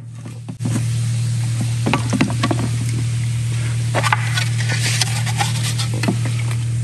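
Pink polystyrene foam fizzing as it dissolves in acetone, a steady sizzling hiss, with a few scrapes and knocks of a hammer and brush against the carbon fiber parts. A steady low hum runs underneath; the whole sound starts abruptly about half a second in.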